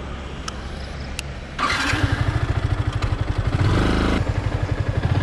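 Motorcycle engine idling, then about a second and a half in the throttle opens and the engine revs up, running on with a rapid, even beat.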